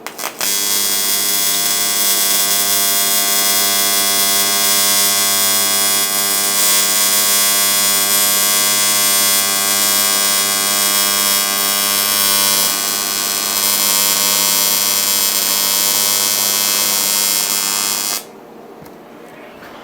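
AC TIG welding arc on aluminum: a steady, loud buzz with many even overtones as a -10 AN fitting is welded onto an aluminum oil pan's sump. The arc strikes about half a second in and cuts off suddenly about 18 seconds in.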